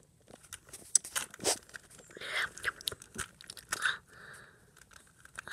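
Close crunching and clicking: an irregular run of sharp clicks with a few rustles, loudest in the first half and dying away near the end.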